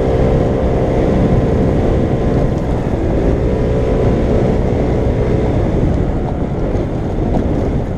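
Small 50cc scooter engine running, its pitch dipping about three seconds in and climbing again, with wind rumbling on the microphone.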